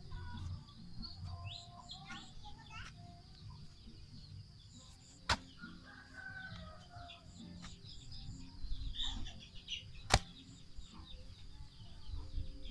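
A long-handled digging spade working in clay soil, with scraping and rustling and two sharp strikes about five seconds apart, the second the loudest. Birds chirp in the background.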